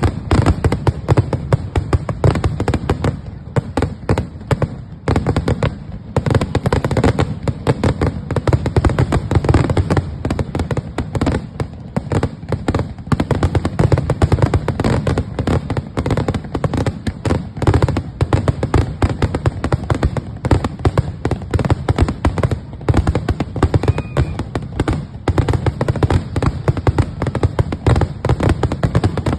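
Fireworks display: a dense, unbroken barrage of bangs and crackling reports, many a second.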